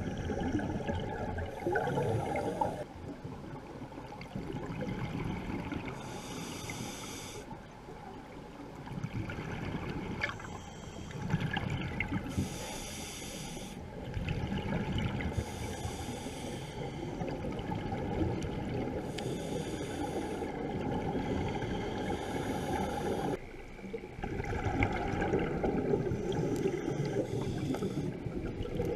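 Scuba diver breathing through a regulator underwater: a hiss on each inhalation every few seconds, alternating with the bubbling rush of exhaled air.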